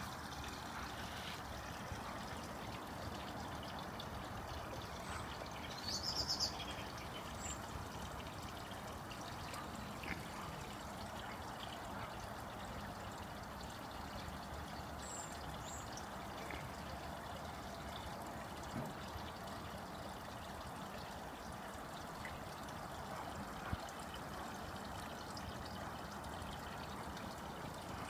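Steady trickling and pouring of water running into a garden koi pond, with a few short high chirps about six and fifteen seconds in.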